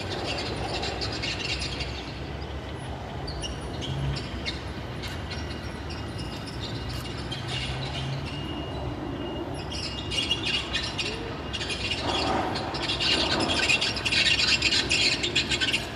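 Low rumble of electric trains on the tracks, with birds chirping over it. The chirping and clatter grow louder over the last few seconds.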